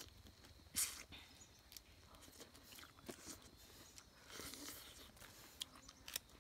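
A person biting and chewing peeled grapefruit segments close up: short mouth clicks and soft rustles of the flesh, with one sharper bite a little under a second in.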